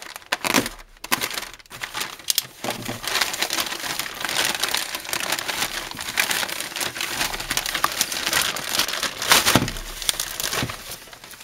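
Shipping package being cut open and handled: continuous crinkling and rustling of packaging, with many small sharp crackles and a few louder snaps.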